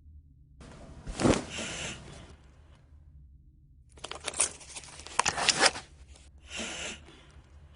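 A person coughing: a cough about a second in, a longer fit of several coughs from about four seconds, and another short cough near the end.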